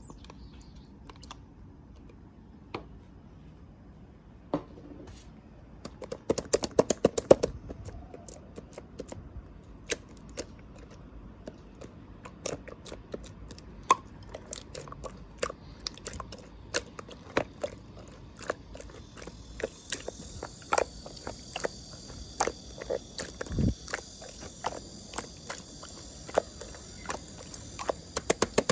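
Clear slime being stretched, pressed and folded by hand: a stream of sharp sticky clicks and pops, with a dense flurry about six seconds in. From about two-thirds of the way in, a steady high chirring runs underneath.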